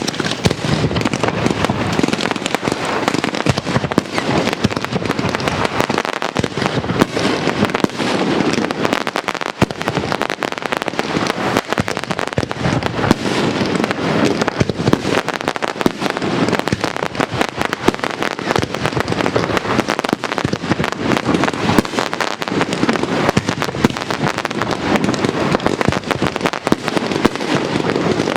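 Castillo fireworks display: a dense, unbroken barrage of shell bursts and crackling that starts abruptly and keeps going without pause.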